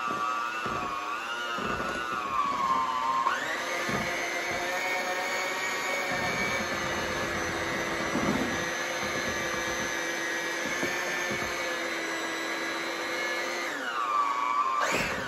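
Handheld electric mixer beating strawberry frosting in a glass bowl: a steady motor whine that steps up to a higher speed about three seconds in, holds, then drops back lower near the end, with a few knocks of the beaters against the bowl.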